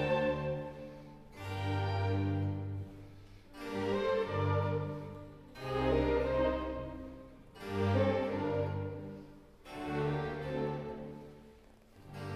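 Background music of orchestral bowed strings, violin and cello, swelling and fading in phrases about every two seconds.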